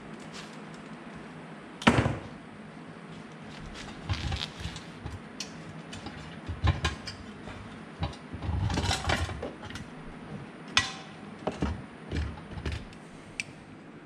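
Hand tools and a sheet-metal electrical outlet box being handled on a workbench: scattered knocks, clicks and short clatters over a steady low hum. The loudest is a sharp knock about two seconds in, with a run of clattering around nine seconds.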